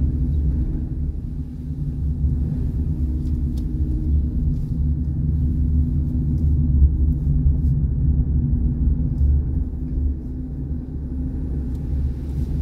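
Steady low rumble of a car's engine and tyres, heard from inside the cabin while the car drives along at low speed.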